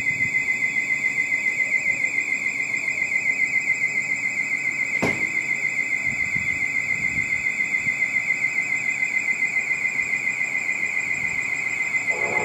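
Station platform warning alarm: a steady high-pitched warbling tone that pulses several times a second, warning that a train is approaching. A single sharp click sounds about five seconds in.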